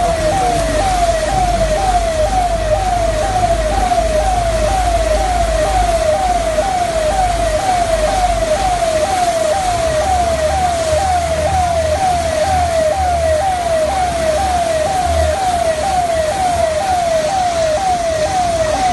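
Electronic emergency siren in a fast yelp, its pitch sweeping about twice a second, over a steady low rumble and hiss.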